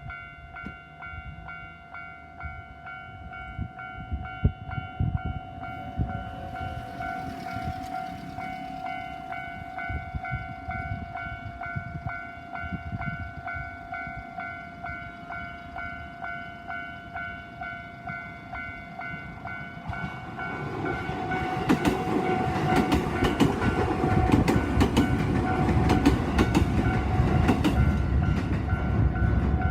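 Japanese level-crossing warning bell ringing in a steady, rapid rhythm. About twenty seconds in, the limited express Tsugaru passes through the crossing, its wheels clattering over the rail joints, much louder than the bell.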